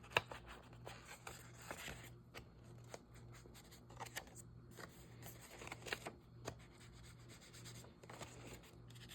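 Paper being rubbed and handled by hand: faint scratchy rubbing with scattered light taps and rustles, over a low steady hum.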